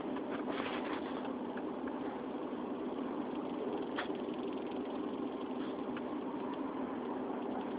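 1997 Subaru Legacy on the move: steady engine and road noise, with a faint click about four seconds in.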